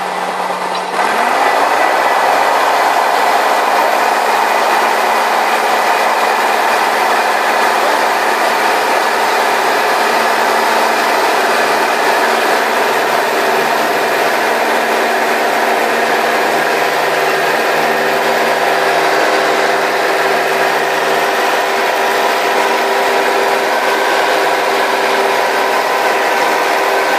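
Single-engine piston light aircraft (Robin DR480) going to full throttle about a second in, its pitch rising briefly. It then runs steadily at full power through the takeoff roll and climb-out, heard from inside the cabin.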